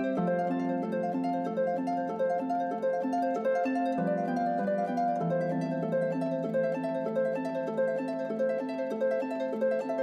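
Instrumental background music: a repeating pattern of short melodic notes over sustained low notes, which shift about four and about five seconds in.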